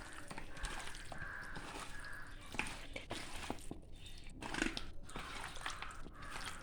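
Hands mixing and rubbing a wet yogurt-and-spice marinade into raw chicken pieces: soft, irregular squelching with small clicks.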